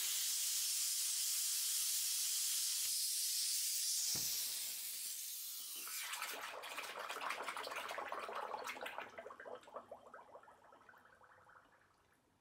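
Pressurised airsoft gas hissing steadily for about four seconds, then an airsoft pistol gas magazine plunged into a mug of water for a leak test, bubbling and gurgling and dying away over several seconds.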